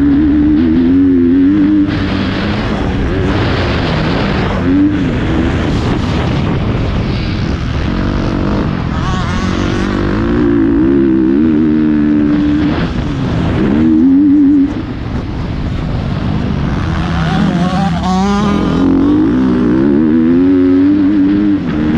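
Motocross bike engine revving hard and easing off again and again, its pitch rising and falling as the rider works the throttle through the gears, over a constant rushing noise.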